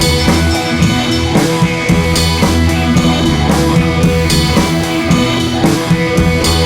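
Rock backing music with drums and guitar at a steady beat.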